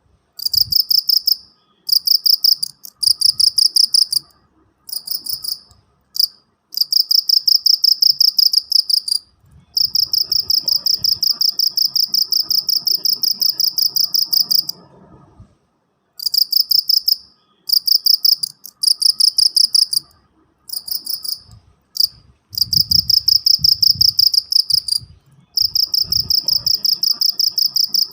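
An insect, cricket-like, chirping in a high, fast, evenly pulsed trill. The trill comes in runs of one to several seconds broken by short pauses.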